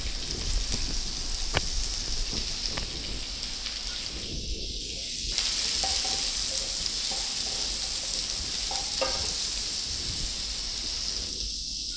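Chopped red onions sizzling steadily in hot oil in a non-stick kadai, freshly added to a mustard and cumin seed tempering, stirred with a spatula that taps the pan a few times.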